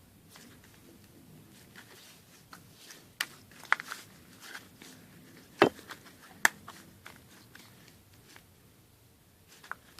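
Homemade slime being squeezed and kneaded by hand: soft handling noise with several sharp pops and clicks, the loudest a little past halfway through.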